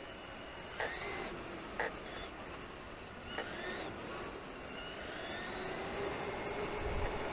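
Electric motors of a Traxxas E-Maxx RC monster truck whining as it is driven, rising sharply in pitch twice as the throttle is punched and then climbing slowly near the end, over steady rolling noise, with a short knock in between.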